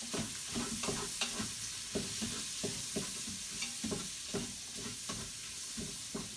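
Chopped onions and bacon sizzling in bacon grease in an Instant Pot on saute mode, stirred with a utensil that scrapes the inner pot in quick repeated strokes, about three a second, over a steady frying hiss.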